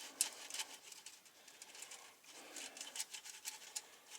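Faint, irregular clicking and scratching of parts being handled and moved about.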